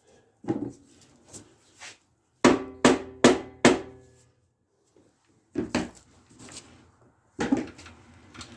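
Hammer blows on metal parts of a lawn mower's front axle: a knock and a few light taps, then four hard quick blows about 0.4 s apart that each ring briefly, and two more single blows later.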